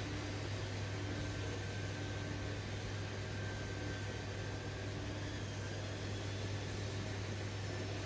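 Hot-air rework gun blowing steadily as a chip is desoldered from a laptop motherboard: a continuous low hum under an even hiss.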